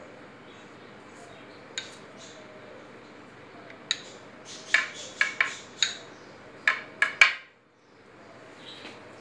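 Pastry brush tapping and clinking against the rim of a ceramic bowl of beaten egg: two sharp clicks spaced apart, then a quick run of about seven in the second half, the last the loudest, over a steady background hiss.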